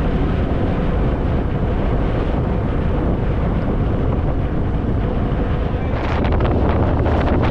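Harley-Davidson Fat Boy's V-twin engine running at road speed under heavy wind noise on the microphone; about six seconds in the wind buffeting turns rougher and crackly.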